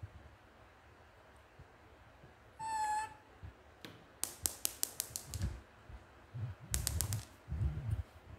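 A baby macaque gives one short, high call about three seconds in. Two quick runs of sharp clicks follow, with soft bumps from handling in between.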